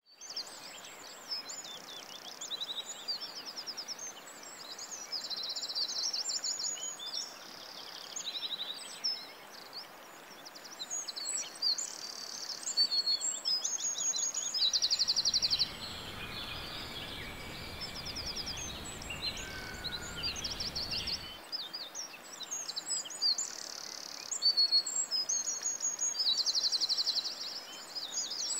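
Several songbirds singing throughout: many high chirps and short, fast trills repeated again and again. From about 15 to 21 seconds in, a low rumbling noise sits under the birdsong, then stops suddenly.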